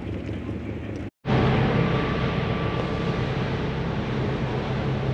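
Steady engine drone of a sportfishing boat under way, with a low hum and a hiss of wind and water over it. It drops out briefly about a second in, then comes back louder.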